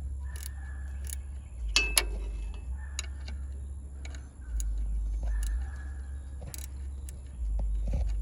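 Ratchet wrench clicking as it is worked back and forth to tighten an AC compressor mounting bolt, a series of sharp, irregularly spaced clicks.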